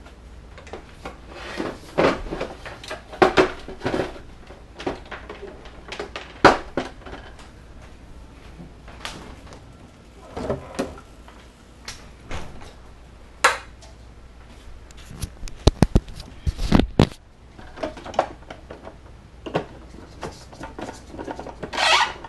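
Scattered knocks, clicks and clatter of household handling as a SodaStream bottle is readied and fitted into the machine. A quick run of sharp clicks comes a little past the middle, and a brief rough rushing sound near the end.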